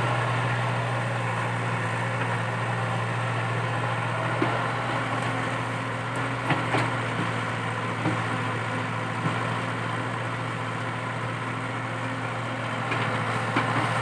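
Komatsu PC80 excavator's diesel engine running steadily under work, with occasional sharp cracks and snaps of wood as a eucalyptus stump and its roots are torn out. The cracks come singly, a few near the middle and a few more near the end.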